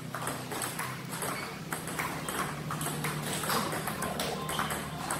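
Table tennis rally: the celluloid-type ball clicking off the bats and bouncing on the table in a quick, irregular string of sharp clicks.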